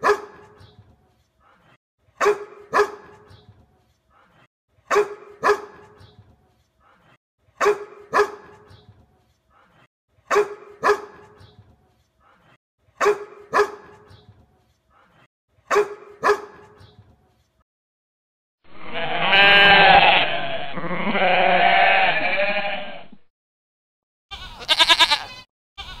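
A dog barking in pairs, woof-woof, the pair repeated seven times at an even pace of about one every two and a half seconds. Then goats bleat: two long wavering bleats one after the other, and a shorter bleat near the end.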